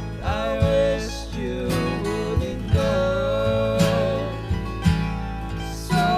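Instrumental break in a full-band country-folk song: strummed and plucked acoustic strings under a lead line that bends and slides in pitch, with regular drum hits.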